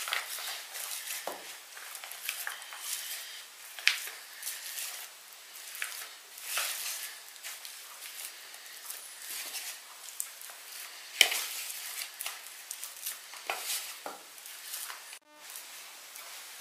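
Metal spoon scraping and tapping against a plastic tub as a thick blended meat filling is scooped into a piping bag: scattered short scrapes and clicks, with one sharper knock about eleven seconds in.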